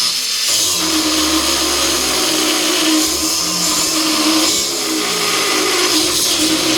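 DeWalt FLEXVOLT Advantage 4.5-inch cordless angle grinder cutting through 3/4-inch-thick steel plate. The motor runs steadily under heavy load at an even pitch, with loud grinding noise.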